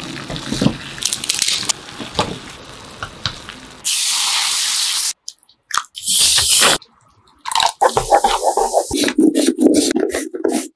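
A glass pot of water at a rolling boil, bubbling as noodles are dropped in. About four seconds in there is a loud hiss of hot oil poured over chopped chili and garlic, then a second short hiss as Sprite is poured into the sauce. From about seven and a half seconds in, a carrot scrapes in quick, repeated strokes across a blade grater.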